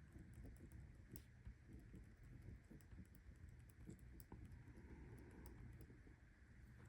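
Faint scratching and light ticking of a pen writing in a paper planner, over a low steady room hum.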